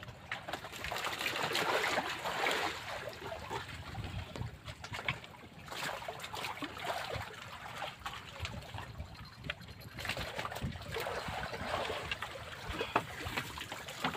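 Water trickling and splashing in uneven patches, with scattered clicks and knocks.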